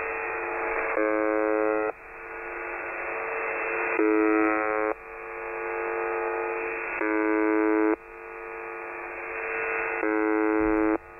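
UVB-76 "the Buzzer", the Russian shortwave station on 4625 kHz, heard through a web SDR receiver. A monotonous buzz tone about a second long sounds four times, once every three seconds or so. Between the buzzes there is radio hiss that slowly grows louder.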